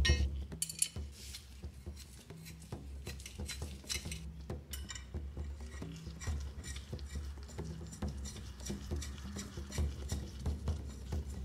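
Antique steel tailor's shears being reassembled by hand: light, irregular metal clicks and clinks as the blades are set together and the pivot bolt and nut are fitted.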